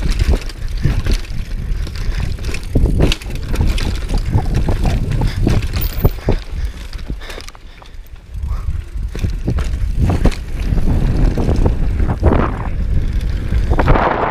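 Downhill mountain bike (Specialized Demo 8) running down a dirt trail: steady tyre noise on the dirt with frequent knocks and rattles from the bike, and wind on the microphone. It goes quieter for about a second halfway through and louder again near the end.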